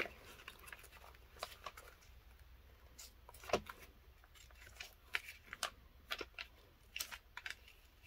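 Thin, coated pages of a thick study Bible being thumbed and flipped by hand: faint, irregular page flicks and rustles, one louder about three and a half seconds in.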